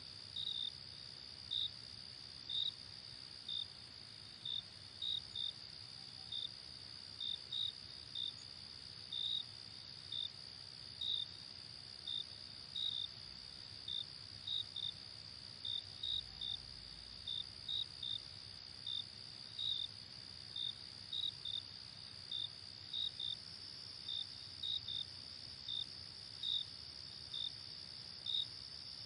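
Night insect chorus of crickets: a steady high-pitched trill with short cricket chirps repeating over it, roughly one to two a second and unevenly spaced.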